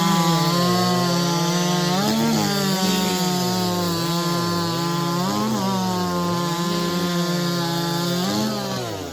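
A big racing chainsaw of 90cc or less, run at full throttle while it cuts through a log. The engine note holds under load, rises briefly three times (about two, five and a half, and eight and a half seconds in), then falls away near the end.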